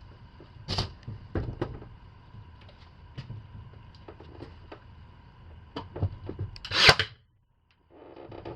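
Scattered knocks and taps of wood and tools being handled, with a loud scrape about seven seconds in, then a brief moment of near silence.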